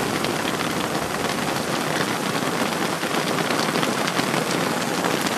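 Heavy downpour falling steadily: a dense, even hiss flecked with many sharp ticks of individual drops striking.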